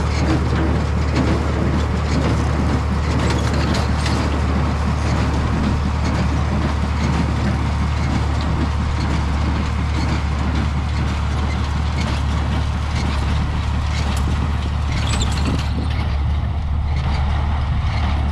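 A tractor running steadily with a square hay baler working, a constant low engine drone under frequent irregular clicks and clatter from the baler.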